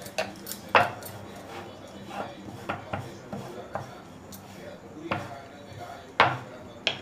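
Sharp knocks and clatter of kitchen utensils, about ten irregularly spaced strokes, the loudest about three-quarters of a second and about six seconds in.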